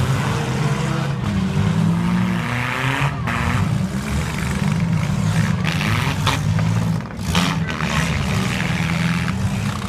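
Several demolition derby cars' engines running loudly at once and revving up and down, with a couple of sharp knocks about six and seven and a half seconds in.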